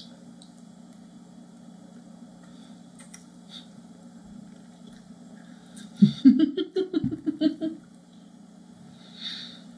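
A woman eating soup from a spoon: faint mouth and chewing sounds, then about six seconds in a loud run of short, pleased humming noises, with a soft breath near the end. A steady low hum lies under it all.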